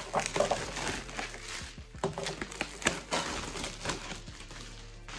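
Packaging rustling and crinkling by hand in irregular bursts as a metal poster is unwrapped, tapering off near the end.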